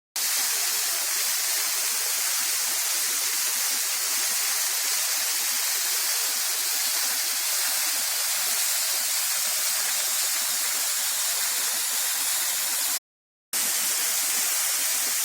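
Waterfall rushing as a steady hiss of falling and splashing water. It drops out completely for about half a second near the end.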